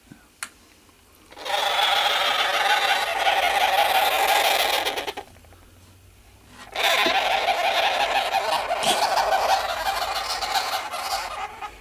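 Sugar glider crabbing: a harsh, buzzing chatter in two long bouts of about four and five seconds with a short pause between. It is the defensive call of an upset glider that does not want to be handled.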